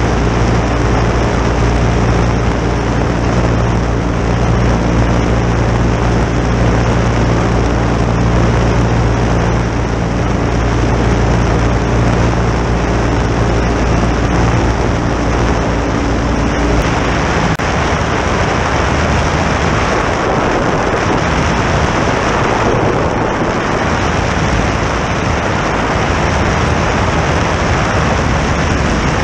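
A Half-VW two-cylinder opposed aircraft engine and its propeller running steadily in flight, heard close up together with a rush of air. About two-thirds of the way through, the even engine hum breaks up into a rougher, noisier sound.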